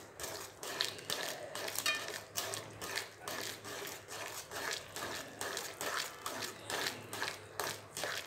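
Metal spoon stirring rava kichadi in an aluminium kadai, scraping and clicking against the pan in quick, uneven strokes as the roasted semolina is stirred into the boiling vegetable water.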